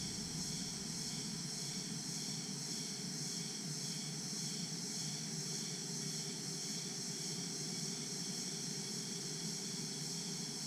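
Daytime tropical jungle chorus of crickets and other insects: a steady high shrill with a lower insect call pulsing on and off at an even pace, over a low steady rumble.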